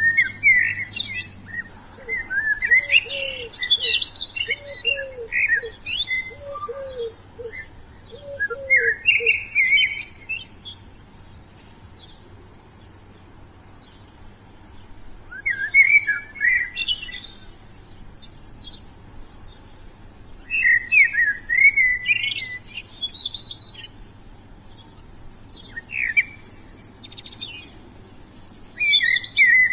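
Bird song: bursts of quick, warbling chirps every few seconds with short pauses between. In the first third a lower call repeats a short note about once a second.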